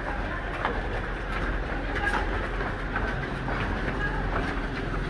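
Many people's running footsteps on concrete stairs: a continuous, overlapping patter of footfalls from a group climbing the steps together.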